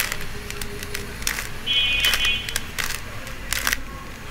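Plastic 3x3 Rubik's cube being turned by hand: irregular clicks and clacks as the layers snap round. A short high-pitched squeal lasts just under a second in the middle.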